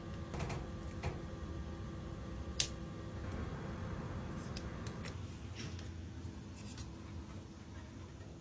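Steady low hum with a few light clicks and taps, and one sharp click about two and a half seconds in.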